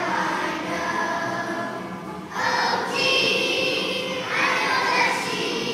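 A class of second-grade children singing a song together as a choir, in sustained phrases with a short break about two seconds in.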